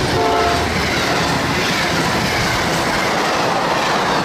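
Amtrak passenger train, diesel locomotive and stainless-steel cars, passing close at speed: a steady rush and rattle of wheels and cars. The tail of its horn ends about half a second in.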